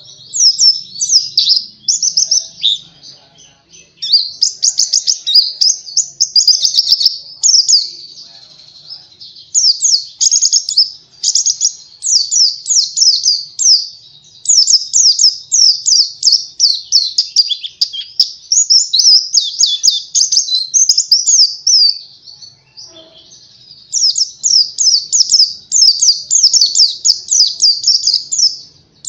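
Pleci (white-eye) singing: long phrases of fast, high twittering notes, each phrase running several seconds, separated by short pauses.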